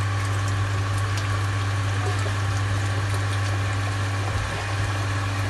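Power-flushing machine's pump running with a steady hum while heating-system water churns in its open tank, and a bottle of chemical cleaner is poured in.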